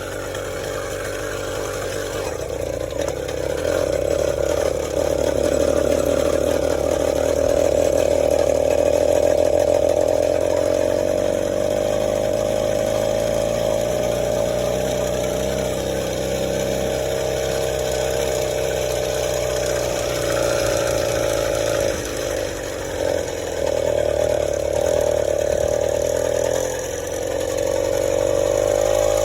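Small engine of a motorized bicycle running under way on a road test, holding a steady pitch with two brief dips in the second half as the throttle eases off.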